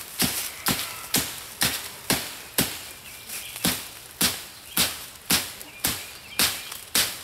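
United Cutlery Black Ronin stainless-steel tomahawk hacking small branches off a tree: a steady run of sharp chops, about two a second.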